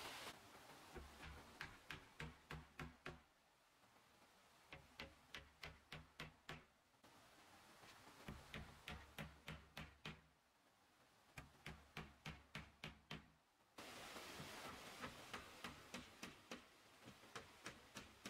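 Faint, rapid hammering in five runs of about eight to twelve blows each, about four or five blows a second, with short pauses between runs.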